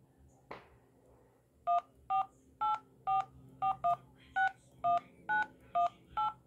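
Nokia Lumia 920 dial pad playing DTMF touch-tones as a phone number is keyed in: eleven short two-note beeps, roughly two a second, one for each digit pressed. A single click comes about half a second in, before the beeps start.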